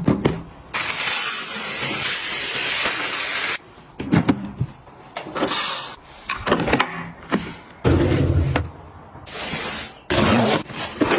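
Household items being handled while restocking a kitchen: a steady hiss lasting about three seconds, then a string of clicks, knocks and rustles from containers and packaging being picked up and set down, with a heavier thump about eight seconds in.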